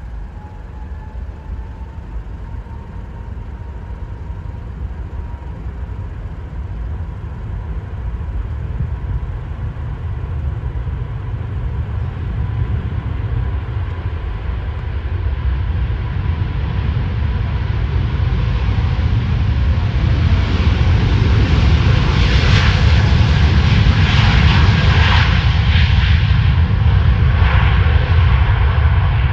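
Jet airliner's engines at high thrust on the runway: a whine rises at the start and levels off, then a deep roar grows steadily louder and turns rough and crackling in the last third as the aircraft comes closer.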